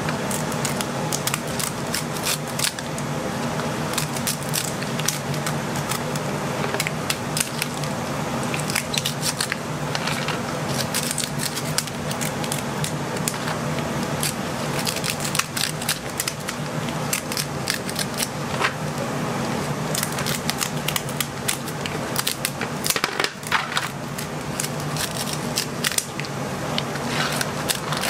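Kitchen scissors cutting through the shells of cooked king crab legs: repeated sharp cracks and snips over a steady low hum.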